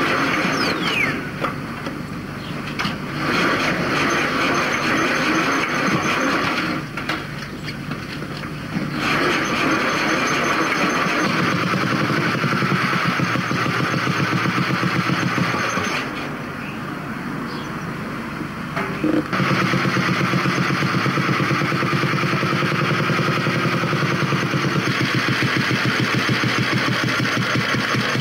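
Vintage motorcycle engine running with a rapid, even exhaust beat. It drops lower twice and picks up again, and is strongest from about two-thirds of the way in.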